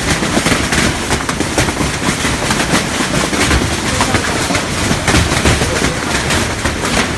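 Heavy hailstorm: a loud, continuous clatter of hailstones pelting down, countless sharp impacts over a steady rushing roar.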